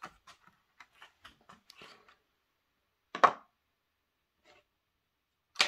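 Clear plastic packaging tray of a model locomotive being handled: a string of small plastic clicks and crackles, then two sharp louder plastic knocks, about three seconds in and near the end, as the model is lifted out of the tray.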